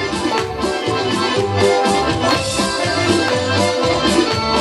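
Accordion playing a lively chastushka tune as an instrumental bit between sung verses, over a steady bass-and-chord beat.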